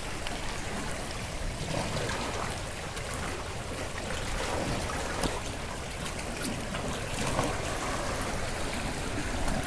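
Sea water lapping and trickling steadily, with a few faint small clicks.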